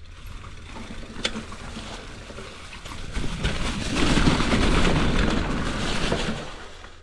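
Mountain bike rolling fast down a steep dirt drop, with wind buffeting the microphone and the tyres rumbling on the ground. The rumble builds about three seconds in and dies down near the end as the bike comes to a hard stop. There is a single sharp click about a second in.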